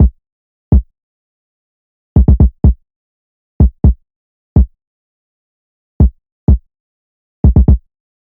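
Deep electronic drum hits, all alike, in an uneven syncopated pattern with dead silence between them: a bare programmed kick-drum beat.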